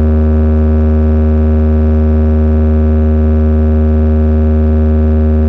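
Large DJ speaker stack of horn drivers and amplifiers sounding a loud, steady, low-pitched drone with a buzzing stack of overtones, held unchanged: a sustained tone for a speaker check.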